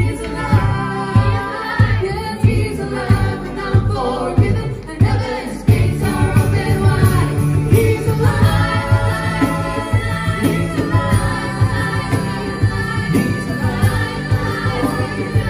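A gospel song performed live: a group of adult and children's voices singing together, backed by guitars over a steady pulsing bass line.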